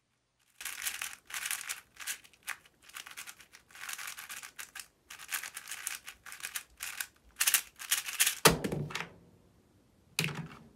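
Plastic layers of an MGC 4x4 speedcube clattering as it is turned rapidly by hand in a speed solve: a quick, irregular run of clicks. Near the end there is a heavier thump as the solve finishes and hands hit the Stackmat timer pads, then a second, shorter thump.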